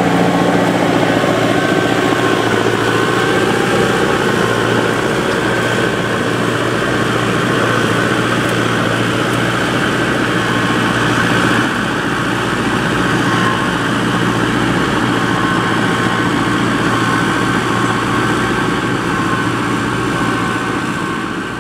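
SAME Explorer 90 tractor engine running steadily under load while pulling a five-shank subsoiler through the ground.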